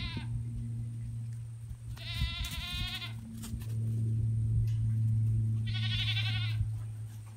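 Goat bleating: two high, wavering bleats, each about a second long, at about two and about six seconds in, with the end of another right at the start. Under them runs a steady low hum that grows louder from about four seconds in.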